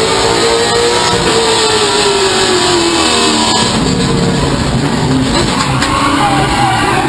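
Stock car's V8 engine at racing speed, heard from inside the cockpit: the engine note rises briefly, falls away over a couple of seconds, then climbs again near the end as the car comes back on the throttle.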